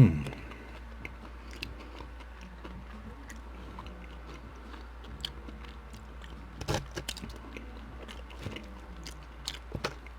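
Close-up chewing and biting of a mouthful of poutine (fries, cheese curds and gravy), with scattered wet mouth clicks and smacks. There is a short loud vocal sound right at the start.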